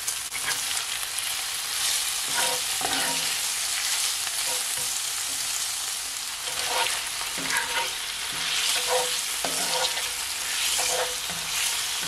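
Salt fish and vegetables sizzling in olive oil in a black pan, with a spatula scraping and knocking against the pan now and then as it is stirred.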